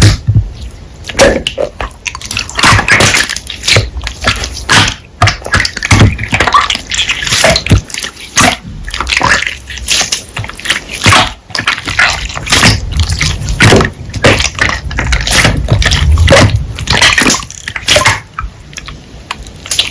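Hands squishing and stretching slime, making irregular wet clicks and pops.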